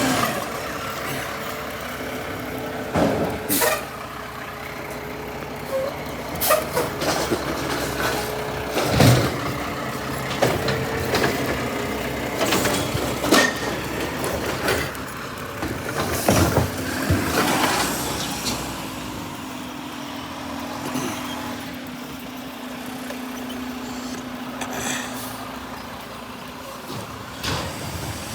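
Garbage truck emptying trash cans: a steady hum of the truck's machinery, broken repeatedly by knocks, bangs and sharp air hisses.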